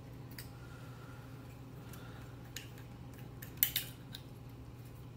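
Faint small metallic clicks as a wire's connector is worked off a terminal screw on a telephone's network, with a sharper cluster of clicks about three and a half seconds in.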